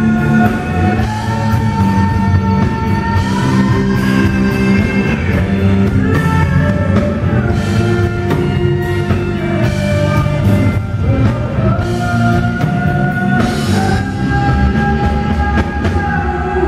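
A woman singing lead over a live rock band with electric guitars, bass and drum kit, holding long sustained notes over the drums.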